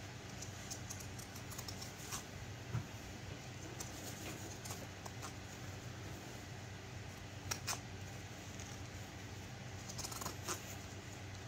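Pinking shears snipping through the layered fabric of a sewn cloth pad's seam allowance: irregular short, crisp cuts, with a few louder snips about two seconds in, past halfway and near the end.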